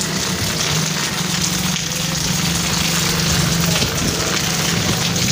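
Steady rain falling, an even hiss, over a steady low hum.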